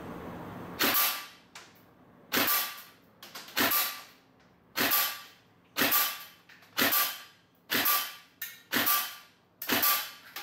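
Lonex L4 airsoft electric rifle (AEG) with electric blowback firing single shots, about nine in a row roughly one a second. Each shot is a sharp snap of the gearbox and blowback bolt with a brief ringing tail.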